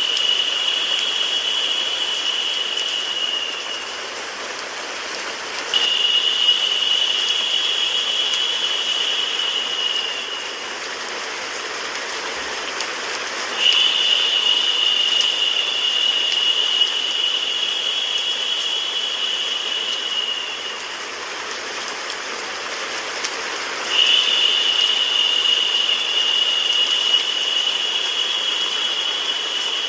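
Steady rain sound effect mixed with white noise, an even hiss. A louder, higher hiss swells in four times for several seconds at a time and then drops back.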